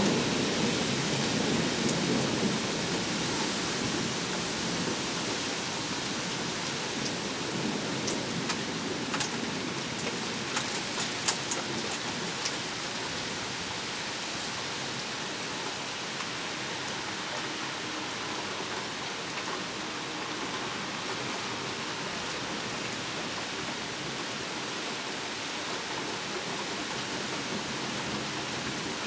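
Steady rain hissing during a thunderstorm, with a low thunder rumble dying away over the first few seconds. A few sharp ticks stand out about ten seconds in.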